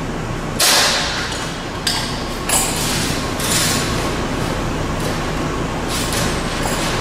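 Sheet-metal part being handled and worked in a CIDAN sheet-metal folding machine: a steady machine hum with several short bursts of metallic scraping and knocking, the loudest about half a second in.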